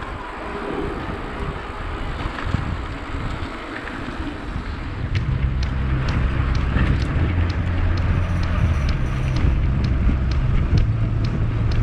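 Wind buffeting the microphone over mountain-bike riding noise on a rough track. About five seconds in, a steady low drone with regular sharp ticks joins and grows louder.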